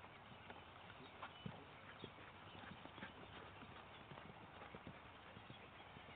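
Faint, irregular hoofbeats of a horse moving on grass, soft thuds over a low hiss, a few slightly louder ones in the first couple of seconds.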